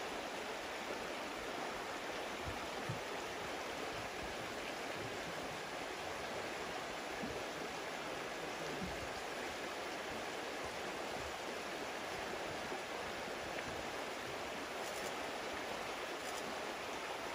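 Shallow, fast-flowing river rushing over a rocky riffle: a steady, even rush of water.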